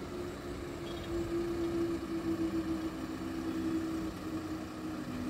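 Level crossing barrier machine's motor humming steadily, two low tones held together, while the barrier booms rise. A van's engine idles close by.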